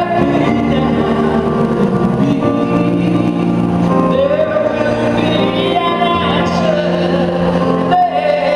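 Live orchestral music, held notes sounding over a steady low bass line.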